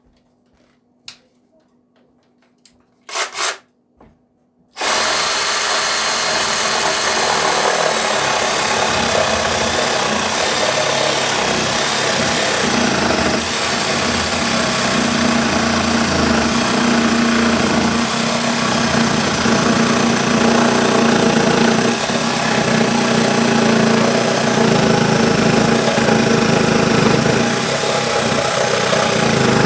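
Ryobi P516 cordless reciprocating saw cutting through a thick, solid plywood desktop. A few light clicks come first; about five seconds in the saw starts, and it then runs and cuts without a break, loud and steady.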